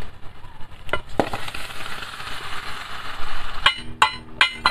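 A steady hiss for about two seconds, then several sharp, ringing metal clanks near the end as a steel rod and tongs knock a freshly cast copper-tin ingot in its steel ingot mold.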